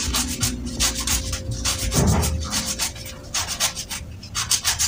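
Hands rubbing and squeezing finely chopped leafy greens on a plate: a quick run of crisp, rustling scrunches, several a second.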